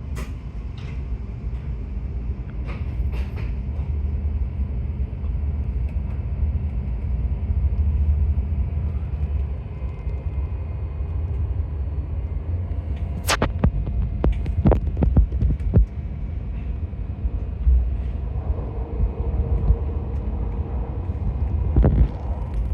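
Steady low rumble of a Tohoku Shinkansen train running, heard inside the Gran Class cabin. A cluster of sharp knocks comes about 13 to 16 seconds in, and a couple more come near the end.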